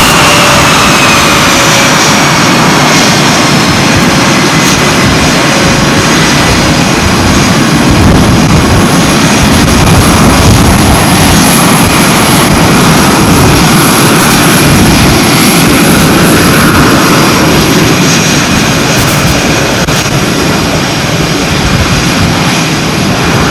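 Carrier jet aircraft engines running loud and steady on the flight deck: a broad rush with high whines over it, one whine dropping slightly in pitch near the start.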